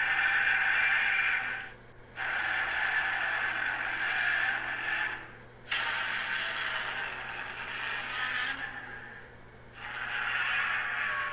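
Godzilla's roar sound effect from the 1962–1975 films, a screeching monster roar heard four times in a row. Each roar lasts two to three seconds with short breaks between them, and a steady low hum runs underneath.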